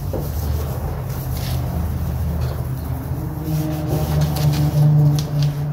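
A motor vehicle's engine running nearby: a low, steady hum that swells to its loudest about five seconds in, then starts to fade. Under it, faint rubbing of a microfiber cloth on a stainless steel grill lid.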